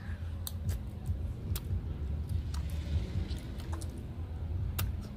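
Bubble gum being chewed close to the microphone: scattered wet smacks and clicks of a mouthful of gum, over a steady low rumble.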